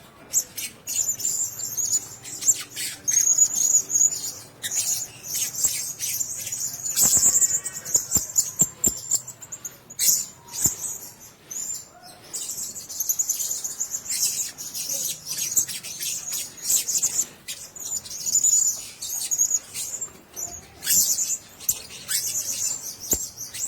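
Blue-crowned hanging parrots chirping: rapid runs of short, very high-pitched squeaky calls with brief pauses between runs.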